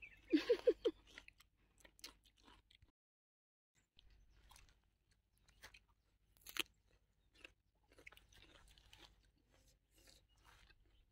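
Crisp bites and chewing of a fresh cucumber, with sparse crunches and the loudest crunch about six and a half seconds in. A brief voiced sound, like a short hum, comes right at the start.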